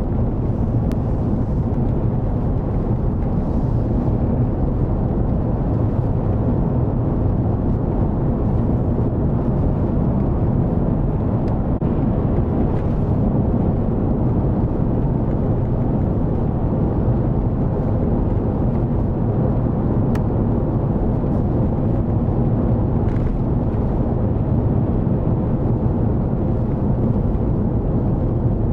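Steady low rumble of a Chevrolet Suburban driving at road speed, engine and tyre noise heard from inside the cab.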